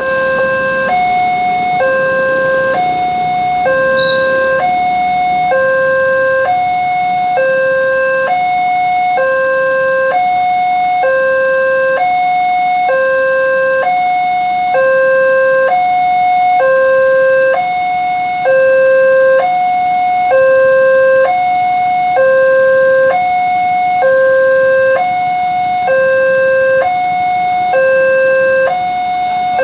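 Indonesian railway level-crossing warning alarm sounding continuously, an electronic two-tone call that switches between a lower and a higher tone about once a second. It signals that a train is approaching and the crossing barriers are closing.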